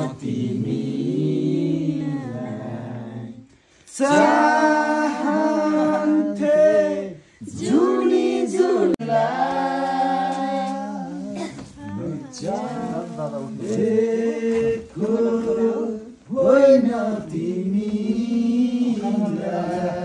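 Voices singing unaccompanied in long held phrases, broken by short pauses about four and seven seconds in.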